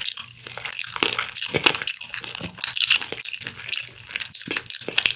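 Close-miked chewing of crispy honey-glazed fried chicken, with rapid, irregular crunching crackles.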